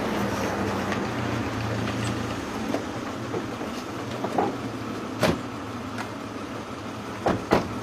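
Car engines running as cars pull up and stop, with a sharp knock about five seconds in and two more in quick succession near the end: car doors shutting.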